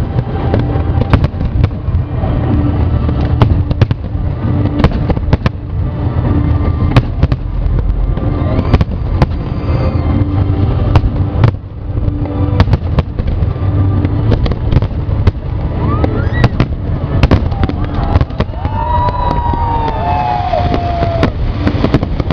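New Year fireworks display: many sharp bangs at irregular, frequent intervals, over a constant low rumble of shells bursting.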